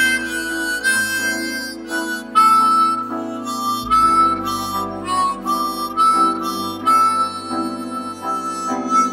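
Background instrumental music: a slow melody on a reedy, harmonica-like lead, held over low notes that change every second or so.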